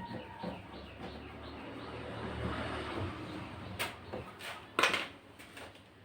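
Handling noises with a low rumble, then a few sharp knocks, the loudest about five seconds in.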